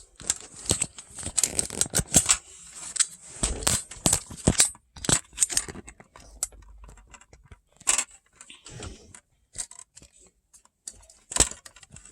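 Irregular clicks, knocks and rattles of hands handling and adjusting a flimsy plastic ring light stand and phone holder, densest in the first few seconds and sparser after.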